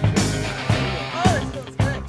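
Background rock-style music with electric guitar over a steady drum beat.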